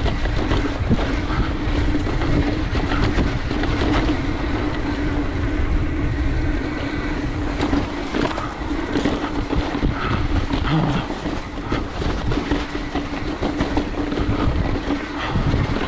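Mountain bike rolling fast downhill over rough singletrack: a steady rumble with constant rattling and knocks, and a steady humming tone.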